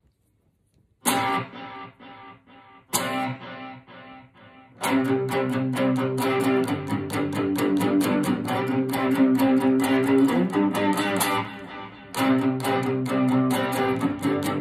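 Red Special electric guitar. A chord is struck about a second in and left to ring out, and another about three seconds in. From about five seconds in, steady rhythmic strumming runs on, with a short break just before twelve seconds.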